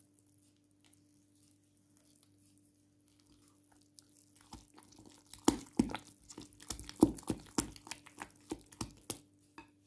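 Flour and water being mixed by hand into a soft, wet dough in a glass bowl. It is faint at first, then from about four seconds in comes a quick, irregular run of wet mixing strokes and knocks against the bowl.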